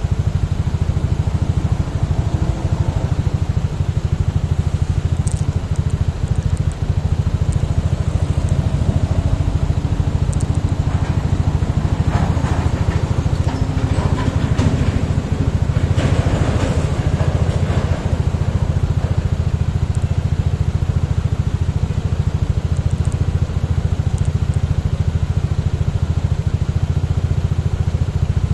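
Motorcycle engine idling steadily while the bike stands still, with two brief noisier swells around the middle.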